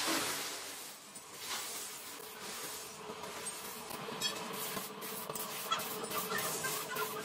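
Workshop machinery running with a steady hum and hiss, with a few short metallic clicks and clinks.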